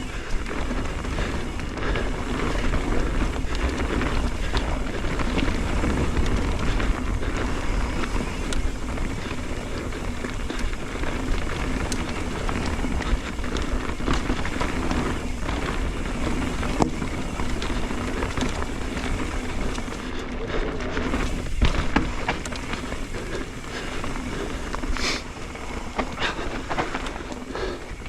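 Mountain bike rolling along a dirt and rock trail: steady tyre noise with many scattered clicks and rattles.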